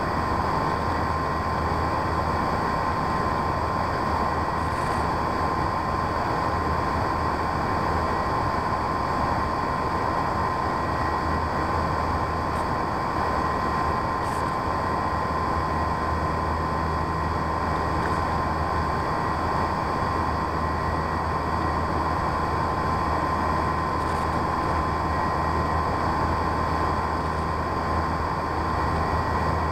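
Onboard recording of a radio-controlled P-51D Mustang model plane in flight: its electric motor and propeller run at a constant, steady whine over a rush of noise from the airflow, with no change in throttle.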